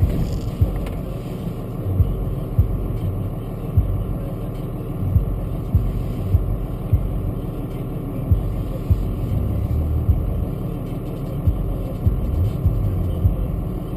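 Inside the cab of an off-road vehicle moving slowly along a snowy trail: a steady low engine rumble, with sharp, irregular thumps every half-second to second as the vehicle jolts over the rough track.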